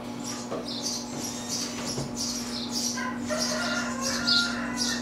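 Newly hatched egret chicks, a day or two old, calling with short high-pitched cheeps about two or three times a second, over a steady low hum.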